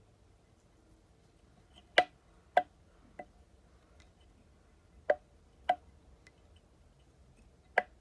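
Sharp clicks of fly-tying work at the bench, six of them, mostly in pairs about half a second apart.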